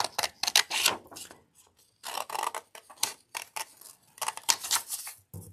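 Scissors cutting paper: a run of quick, crisp snips in short clusters with brief pauses, as a paper pattern piece is cut out along its curve.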